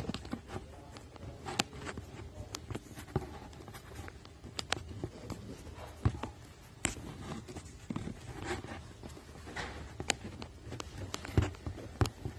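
Irregular taps, clicks and rustles of hands handling and opening a cardboard box, with sharper knocks near the end.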